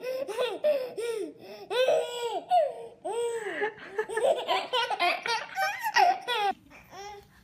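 Babies laughing hard in quick, repeated peals of belly laughter, dying away about six and a half seconds in.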